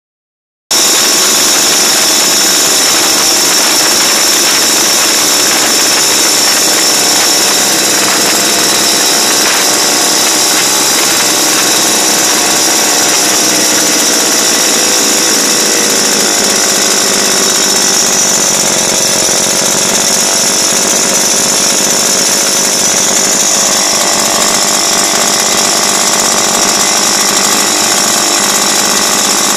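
Trojan Major 75cc single-cylinder two-stroke engine running loud and steady on its first run after a full rebuild, its speed wavering a little midway.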